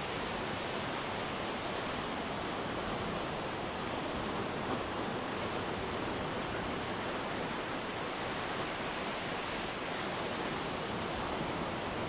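Steady rushing noise of ocean surf, even throughout with no single wave standing out.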